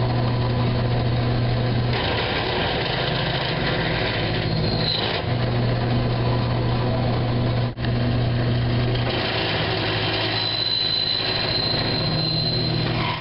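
Drill press running with a steady motor hum while the spindle is fed down into the work with the feed handle. A thin high-pitched squeal comes in over the last few seconds.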